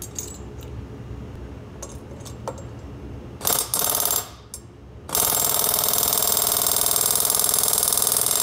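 Pneumatic air hammer with a guide driver pressing new valve guides into an aluminum Subaru WRX cylinder head: a short burst of rapid hammering about three and a half seconds in, then a long steady burst from about five seconds in. Before that, a few light metal clicks from handling the tooling.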